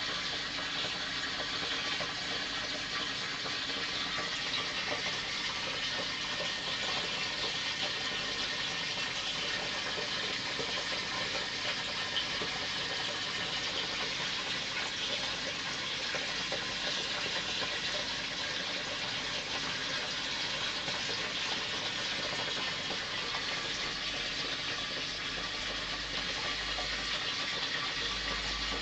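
Aquarium filter running: a steady rush of moving water with a faint motor hum beneath it.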